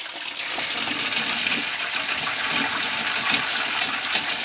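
Potato chips sizzling in hot oil in a chip pan with a wire basket during their second fry: a steady hiss dotted with crackles, a little louder from about half a second in.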